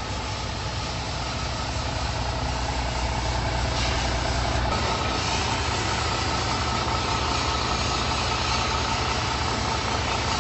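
MAN concrete mixer truck's diesel engine running steadily, a low hum under a broad mechanical noise that grows a little brighter about four seconds in.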